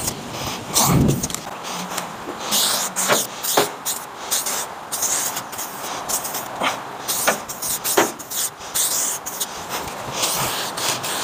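Aerosol spray-paint can spraying in several short hissing bursts, with scattered clicks and knocks in between.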